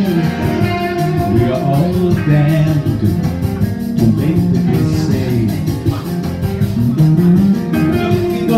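Live blues song: electric guitar playing with a man singing into a microphone through a small PA.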